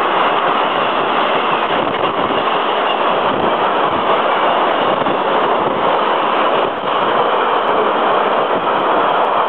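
Freight train of empty car-transporter wagons passing close by at speed: a loud, steady rushing noise of wheels and wagons, with a brief dip about two-thirds of the way through.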